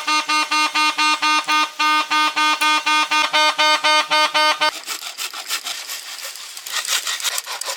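Vuvuzela horn sounded in rapid, even blasts on one steady note, about five a second, stopping abruptly after nearly five seconds. A quieter scratchy rubbing or scraping follows.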